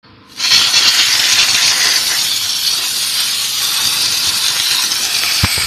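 Steam gun of a 6 kW boilerless car-wash steam cleaner blasting steam onto a car's alloy wheel: a loud, steady hiss that starts abruptly about half a second in. A brief thump near the end.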